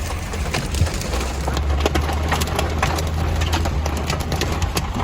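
Tractor engine running with a steady low hum, while raindrops strike the cab roof and windshield as many irregular sharp clicks.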